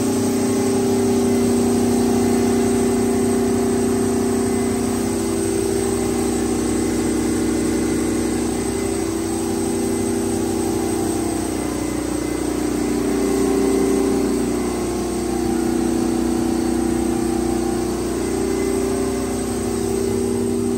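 Detroit Diesel 12V149 two-stroke V12 diesel of a 1250 kW generator set running steadily at constant speed, heard from inside its enclosure. The level swells and eases a little but the engine note holds steady.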